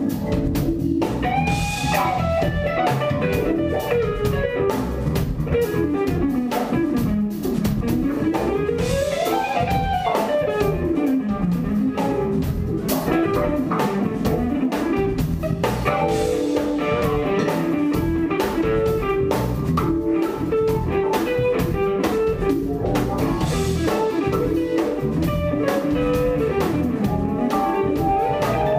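Live jazz band playing: an electric guitar leads with fast runs that climb and fall in pitch, over drum kit with cymbals, electric bass and keyboards.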